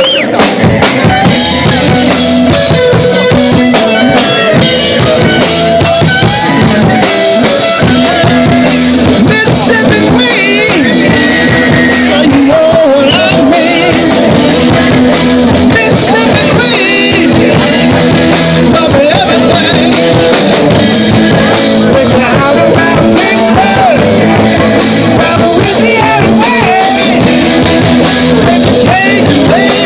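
Live rock band playing loudly and steadily: electric guitars, bass and drum kit, with a singer on a microphone.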